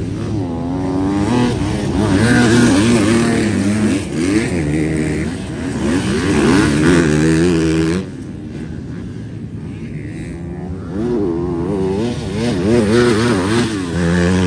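Motocross bikes racing past, their engines revving up and down with the throttle. They are loud in two passes, one in the first half and another near the end, with a quieter stretch between.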